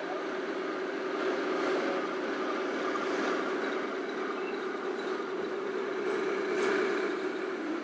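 Remote-controlled model tank's simulated engine sound, a steady low drone.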